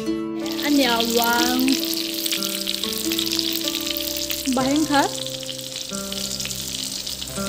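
Sticky rice sizzling as it fries in a wok, turned with a metal spatula; the sizzle starts about half a second in. Steady background music plays under it.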